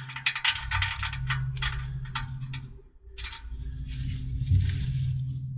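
Quick light metallic clicking and rattling as a steel plug tap is set into the threaded exhaust-pipe sensor bung and started by hand. This is followed by a softer rustling noise of gloved hands working close by.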